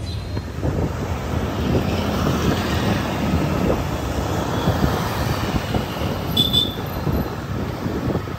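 Road and wind noise from a moving vehicle in traffic: a steady low rumble with uneven crackle. A brief high squeal comes about six and a half seconds in.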